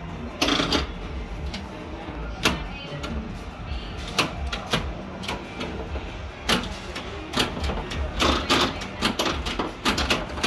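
Flash pinball machine (1979 Williams) switched on and clacking: irregular sharp knocks and clicks from its solenoids and relays, some in quick bursts, over a low steady hum.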